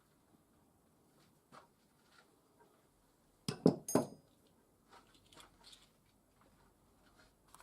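Hard objects being handled: a quick cluster of three or four clinks and knocks about three and a half seconds in, the last with a brief metallic ring, among faint scattered taps.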